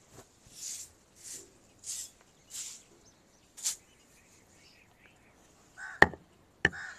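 Footsteps scuffing on a gritty earth floor, about one and a half steps a second, stopping a little past the middle. Then a couple of sharp knocks near the end.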